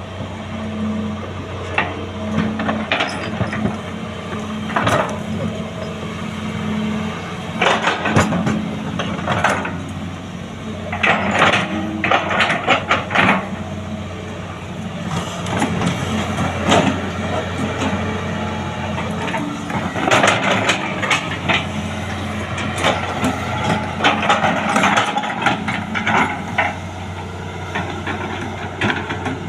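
Hitachi 210F excavator's diesel engine running steadily, with repeated metallic clanks and knocks around a track that has come off its rollers.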